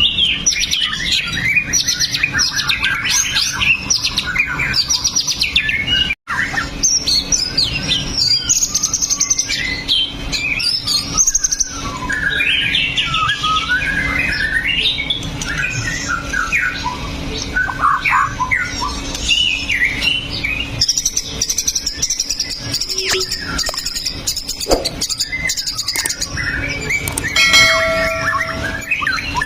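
White-rumped shama (murai batu) singing without pause, a fast, varied song of many short phrases, with a momentary break about six seconds in.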